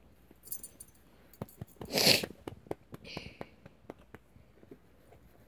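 A dog being play-wrestled by hand: scattered small clicks and rustles, with one loud, short blast of breath from the dog about two seconds in and a softer breath about a second later.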